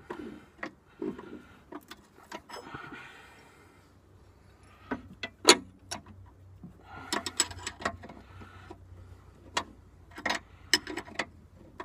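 Hand wrenches clinking on a sway bar link as a mini pipe wrench holds the link and a combination wrench works its nut: scattered sharp metal clicks and clanks, with a louder clank about five and a half seconds in and a quick cluster of clicks a little later.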